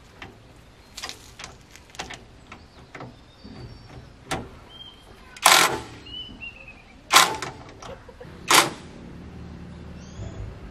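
Cordless impact wrench driving the bolts on a tractor's rotary tiller blades. It fires in three short, loud bursts around the middle, with lighter clicks and knocks of the work in between.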